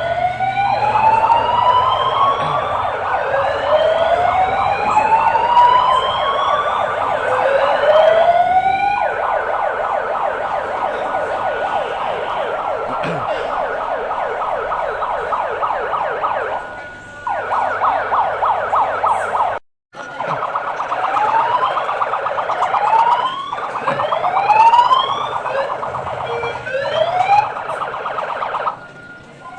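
Drill alarm sounding: a siren rising in pitch again and again over a fast-pulsing alarm tone, signalling the start of an earthquake drill. It breaks off briefly a few times.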